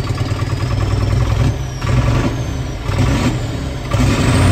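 David Brown 1690 tractor's six-cylinder diesel engine running with its exhaust pipe removed during a hard cold start, now firing on five or six cylinders. It runs with a deep rumble that swells and eases unevenly.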